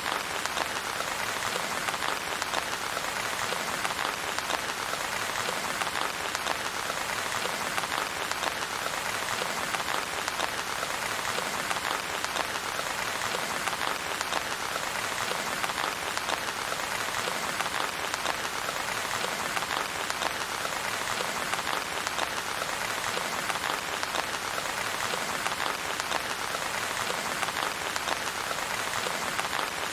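Steady rain falling, a dense, even patter that does not change, with no thunder.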